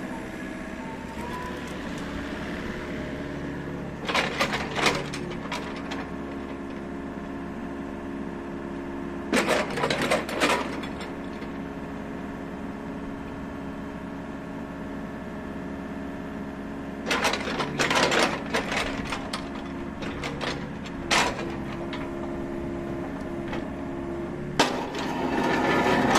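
Komatsu PC40MR-2 compact excavator's diesel engine running steadily while the boom and arm are worked, with several short bursts of mechanical clatter, the loudest and longest near the end.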